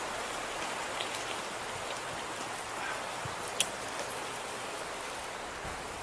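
Steady rushing hiss of riding a bicycle on a paved trail: wind over the camera microphone and tyres rolling on asphalt. A single sharp click about three and a half seconds in.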